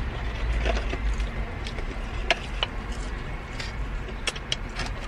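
Eating sounds of people snacking on fries: about half a dozen short, sharp mouth clicks and smacks, the loudest a little past two seconds in, over a steady low rumble.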